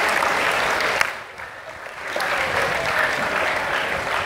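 Audience applause that cuts off abruptly about a second in, followed after a quieter second by crowd noise swelling again.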